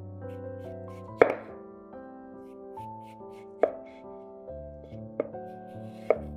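Chef's knife chopping vegetables and slicing peeled raw potatoes into rounds on a wooden cutting board. Four sharp knocks of the blade meeting the board, the loudest about a second in, with faint ticks between them.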